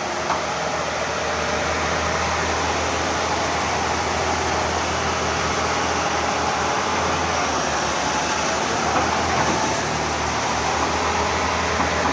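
Hydraulic excavator's diesel engine running with a steady drone, under a dense, even machine noise.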